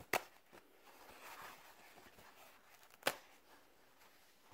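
Faint rustling of toilet paper being torn and handled, with two sharp taps about three seconds apart.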